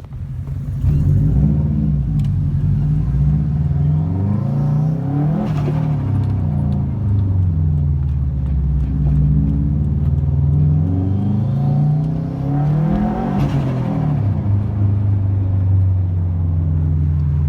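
Car engine running and being revved, its pitch sweeping up and down with two swells, one about five seconds in and one near thirteen seconds.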